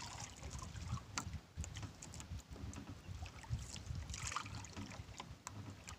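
Handline being hauled in hand over hand from a small boat with a fighting fish on it. Scattered soft rustles and small knocks sit over a low, uneven rumble of the boat on the water.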